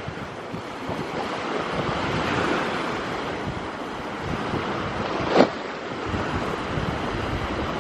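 Sea waves washing on the shore in a steady, swelling rush, with wind buffeting the microphone. A single sharp knock about five seconds in.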